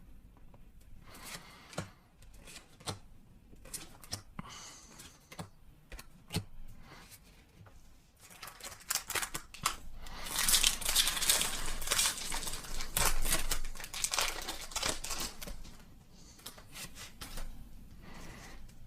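Handling noises and light clicks, then, about halfway through, a foil Pokémon booster pack wrapper being torn open and crinkled for several seconds.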